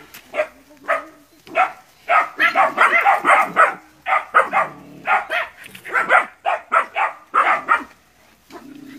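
A litter of young hunting-dog puppies yapping and barking in rapid, overlapping, high-pitched bursts as they bay at a water buffalo, with a brief lull about four seconds in and a quieter stretch near the end.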